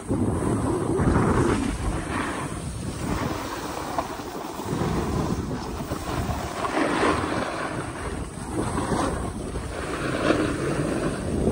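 Wind rushing over the microphone while a snowboard slides and scrapes over packed groomed snow, the noise swelling and fading repeatedly.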